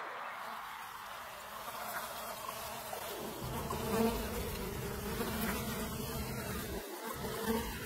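A flying insect buzzing with a steady drone that grows fuller about halfway through.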